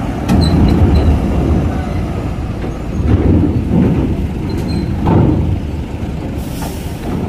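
Diesel trucks driving across a ferry's steel grated loading ramp: engines running in a low rumble with the clatter of tyres over the steel plates, a few sharp knocks, and a short hiss about six and a half seconds in.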